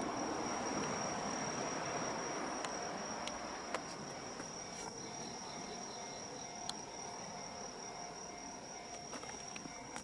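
Crickets trilling steadily, one high continuous tone, over a broad distant rumble that fades away over the first few seconds. A faint steady hum sets in about halfway through.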